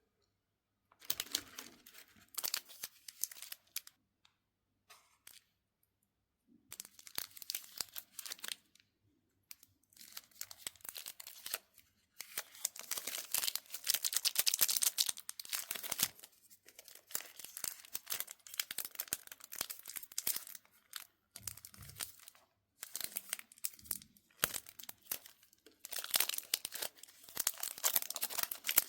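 Thin plastic wrappers of mini chocolate bars being torn open and crinkled by hand, in bursts of crackling with short silent pauses between them, the loudest stretch about halfway through.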